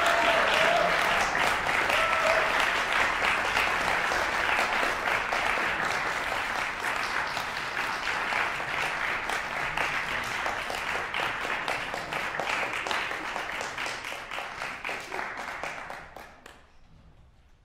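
Audience applauding at the end of a performance, thinning out and stopping shortly before the end.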